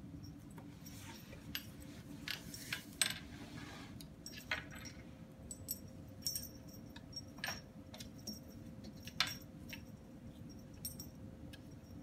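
A kitten playing with a catnip toy on a tile floor: scattered light clicks and clatters with a faint metallic jingle, the loudest about three seconds in and again near nine seconds.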